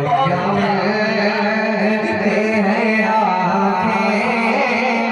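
A man singing a naat, a devotional poem sung in a drawn-out, melismatic style, over a steady low held tone.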